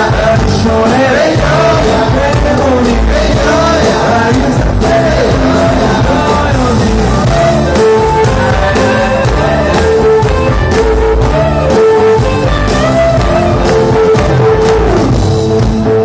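A live band plays loud amplified music over a PA system, with a singer's voice carrying the melody throughout.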